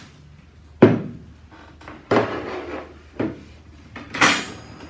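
Hard objects knocked and set down on a tabletop while the espresso machine and its parts are handled: a sharp knock about a second in, a clatter at about two seconds, another knock, and a clatter with a brief ringing edge near the end as the machine is taken in hand.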